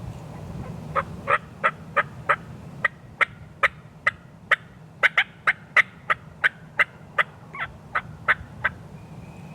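Turkey yelping: a long run of about twenty short, sharp yelps, roughly three a second, starting about a second in and stopping shortly before the end.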